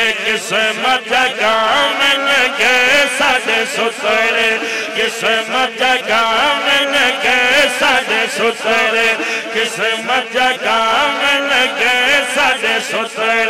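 Male voices singing a naat, an Islamic devotional song, through microphones and a PA, in quick ornamented melodic runs over a steady held drone.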